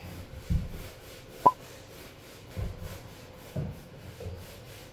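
Hand scrub brush scrubbing a rug in quick strokes, with dull thumps every second or so and one sharp click about a second and a half in.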